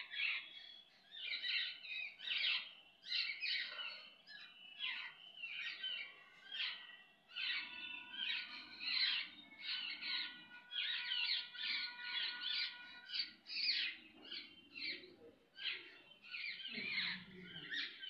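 House sparrows chirping in quick, repeated series, about two chirps a second: the insistent begging calls of a young sparrow asking its parent for food.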